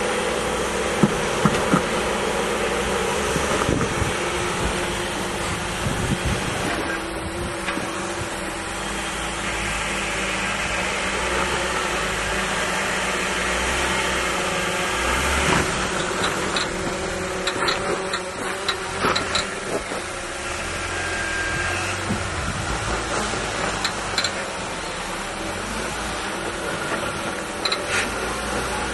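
Jeep Gladiator rock crawling: its engine running steadily at low revs as it creeps over boulders, with a few sharp knocks and clicks from the tyres and rock about a second in and again around the middle.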